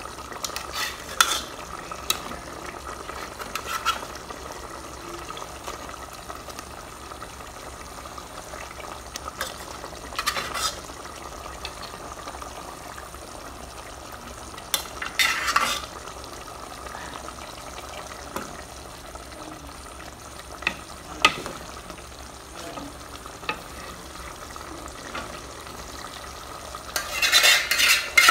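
Tomato-and-pepper fish sauce simmering in an aluminium pot with a steady bubbling hiss, broken by scattered clinks and scrapes of a metal spoon against the pot. A louder run of metal clattering comes near the end.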